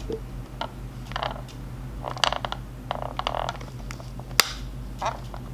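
Plastic Bluedio Victory headphones being handled: a series of short creaks, rustles and clicks, with a sharp click about four and a half seconds in.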